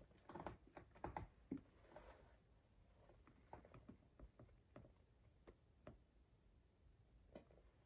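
Faint knocks, taps and rubs from a pair of dress shoes, one leather-soled and one rubber-soled, being handled and shifted in the hands, with a cluster of louder knocks about a second in.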